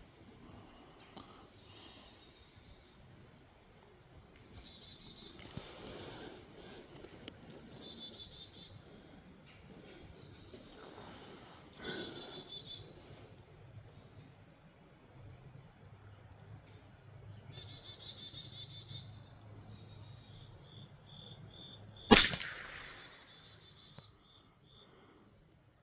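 A single .22 LR rifle shot about 22 seconds in, a sharp crack with a brief tail, over steady insect chirring.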